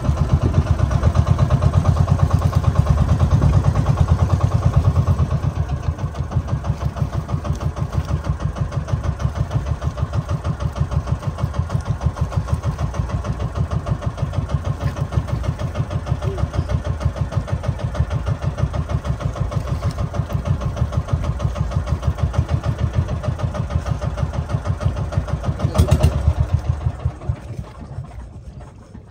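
A boat's engine running steadily with an even, pulsing beat, a little louder in the first few seconds. It surges briefly near the end, then quickly dies away as the engine is throttled down or cut.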